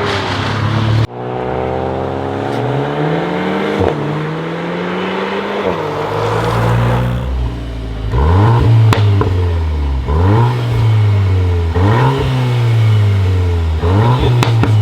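Volkswagen Golf 8R's turbocharged four-cylinder through its Akrapovic exhaust. It first pulls with the revs climbing steadily and one drop at a gear shift, then is revved in a run of sharp throttle blips, each rising quickly and falling back, about every second and a half. A couple of sharp cracks come in the blips.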